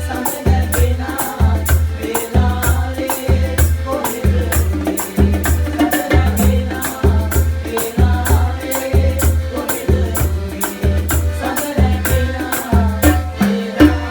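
Sinhala calypso-style band music with a steady beat: bass notes about twice a second under a busy shaker rattle and a melodic instrumental line. It stops abruptly at the very end.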